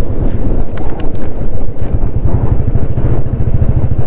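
Motorcycle engine running with a steady, fast low beat as the bike rides along a gravel track, with a few sharp ticks about a second in.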